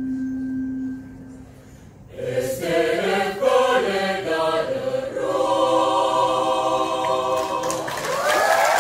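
Mixed choir singing: a single low note is held for about a second and a half, then after a short pause the voices come in about two seconds in and settle into long held chords near the end.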